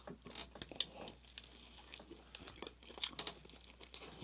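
Chewing a bite of a breakfast sandwich on a lightly toasted everything bagel, with a scatter of small mouth clicks and crackles.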